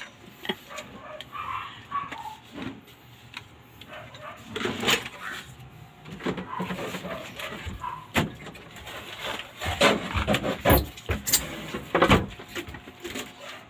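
Scattered knocks and clatters from things being handled, with a few short, faint squeaks from young puppies.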